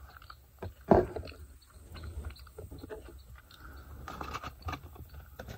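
Small clicks and rustles of eating and of handling a crinkly paper takeout bag, with one loud, short sound about a second in that drops in pitch.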